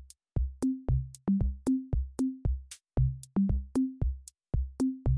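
Background electronic music: a drum-machine beat of sharp clicks with short bass notes climbing in a three-note figure that repeats about every two seconds.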